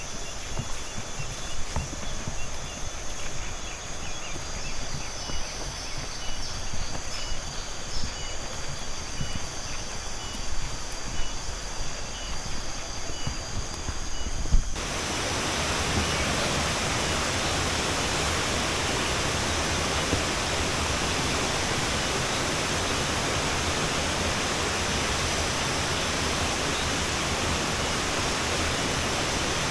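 Footsteps on a dirt trail with faint, repeated high chirps. About halfway through, the sound cuts abruptly to the steady rush of a waterfall.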